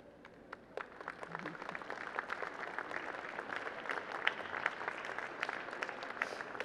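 Audience applauding at the end of a song, the clapping starting about half a second in and building over the next couple of seconds.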